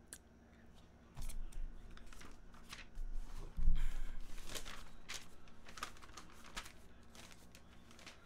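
Sheets of printer paper rustling and crinkling as they are picked up and leafed through, with a dull bump on the desk about three and a half seconds in.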